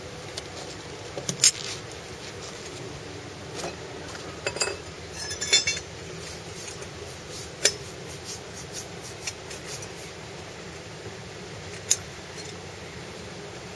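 Scattered sharp clicks and clinks of hard parts being handled and fitted together by hand during tool-free assembly of a portable pontoon boat. There are a handful of louder snaps, about 1.5, 5.5, 7.5 and 12 seconds in, over a steady low background.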